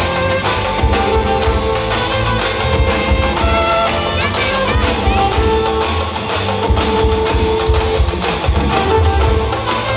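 Loud live stage music: a violin lead playing sustained notes with slides over heavy, fast drumming.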